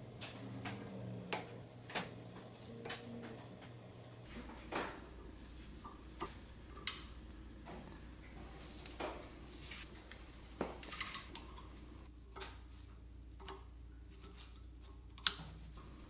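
Scattered, irregular small metallic clicks and taps from a screwdriver working against the steel hammer and balls of an impact driver's hammer assembly, which is clamped in a puller. A sharper click comes near the end.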